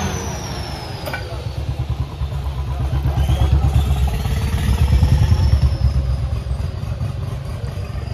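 Tractor diesel engines labouring at full load in a tractor tug-of-war, a deep rapid throb that builds in loudness to a peak about five seconds in, then eases slightly.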